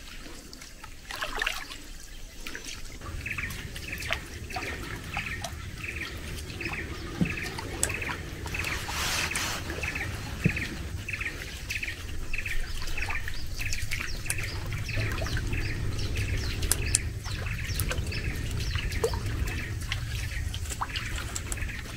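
A bird repeats a short high chirp about twice a second, over soft trickling and lapping of water around a small boat.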